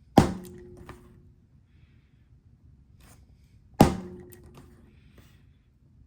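Two hard blows struck on wood, about three and a half seconds apart, each leaving a short low ringing, with a few lighter taps between.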